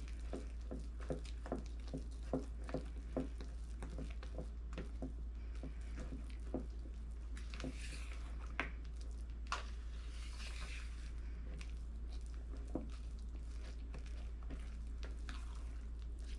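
Thick fudge mixture being stirred by hand in a bowl: soft squishing with quick light taps against the bowl, about two or three a second at first and sparser later.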